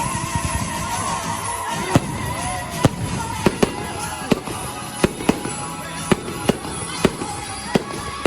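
Fireworks display: about a dozen sharp bangs of shells bursting at irregular spacing, over music playing alongside the show.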